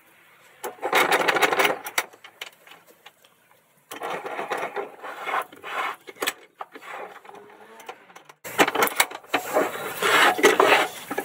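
Bench vise being wound in to press a new bearing into its cast housing with a large socket: metal parts clinking and scraping against the vise jaws and the screw rubbing as it turns. It comes in three spells of a second or two, each full of sharp clicks.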